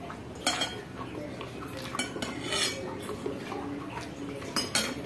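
Metal fork clinking and scraping against a ceramic plate while gathering fried instant noodles, with a handful of sharp clinks, one about half a second in and two close together near the end.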